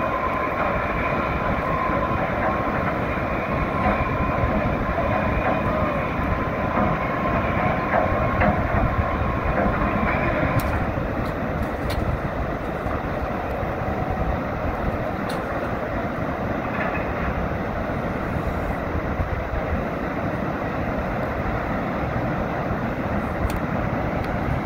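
River water rushing out under the steel gates of a movable dam as they are being lowered, a steady rumbling roar. A thin steady whine rides on top for the first ten seconds or so, then stops.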